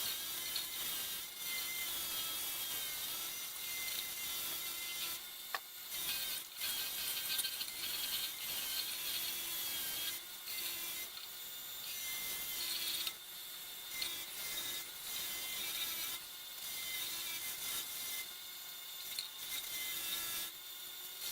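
A small motorized tool running with a steady whine over a grinding, scraping noise as it works the metal of an antique nail puller during restoration. The tone dips briefly every few seconds as the tool is pressed on and lifted off the work.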